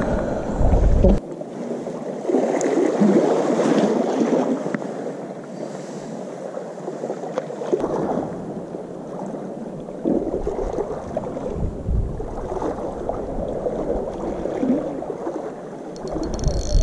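Sea water lapping and sloshing against the harbour edge: an uneven rushing that swells and fades every second or two.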